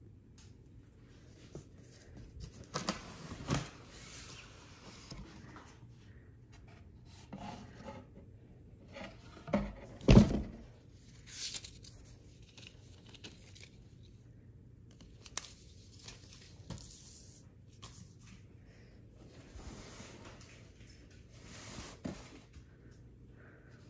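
Unboxing handling noise: a cardboard box being opened and moved, with irregular scraping and rustling of cardboard and a mesh drawstring bag being tugged. The loudest sound is a single thump about ten seconds in.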